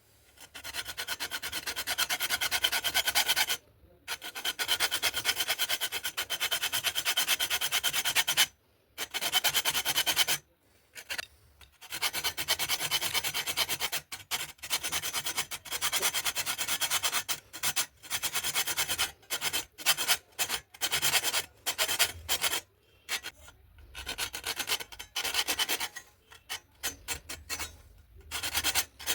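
Abrasive rasping on a part being shaped, as in filing or sanding. It comes in steady runs of a few seconds with short pauses, and the runs become shorter and choppier in the second half.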